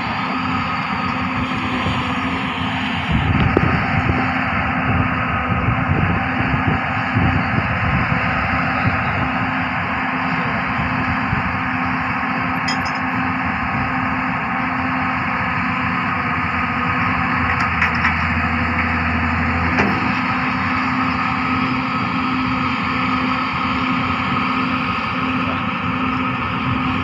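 Large Hyundai hydraulic excavator's diesel engine running steadily, growing louder and rougher for several seconds about three seconds in, with a few knocks.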